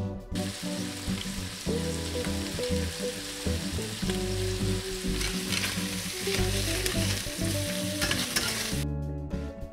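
Chicken pieces sizzling in a hot stainless steel frying pan as herbs are sprinkled in and the pieces are turned. The sizzle cuts off about a second before the end, leaving soft background music that plays under it throughout.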